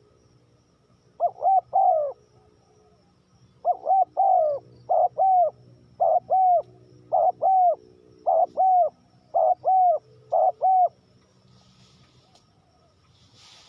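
Spotted dove cooing: a run of short coos in groups of two or three, repeated about once a second, stopping a couple of seconds before the end.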